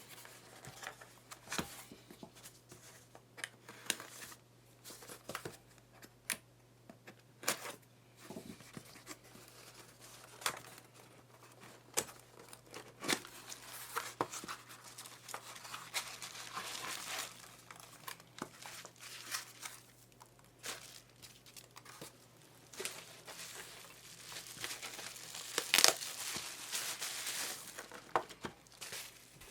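Hands unpacking a box: scattered clicks and taps, with two longer stretches of wrapping crinkling and tearing, one in the middle and one near the end. The loudest sharp snap comes about three seconds before the end.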